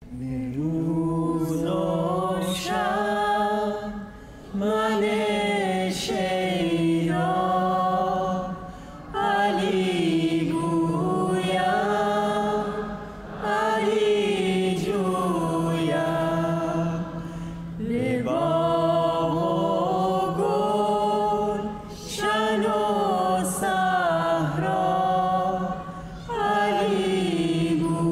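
Slow, chant-like singing in melodic phrases of about four seconds each, separated by brief pauses, over a steady low drone.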